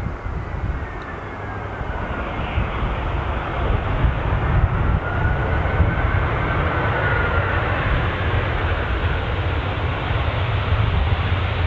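Airbus A320-214 airliner's CFM56 jet engines running as it rolls fast along the runway: a steady rumble with a faint whine over it, growing louder over the first few seconds as the aircraft comes nearer.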